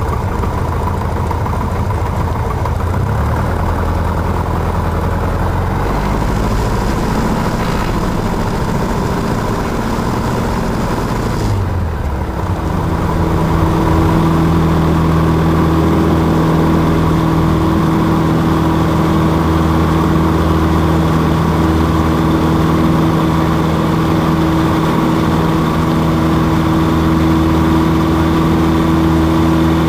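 Cessna 150's four-cylinder Continental O-200 engine and propeller, heard from the cockpit, running at low power while taxiing. About twelve seconds in the throttle opens to full power for the takeoff roll, and the engine runs louder and steadier at a higher, even pitch.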